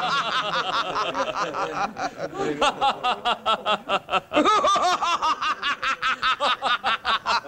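Several voices laughing together in a quick run of 'ha-ha-ha' syllables, about four to five a second.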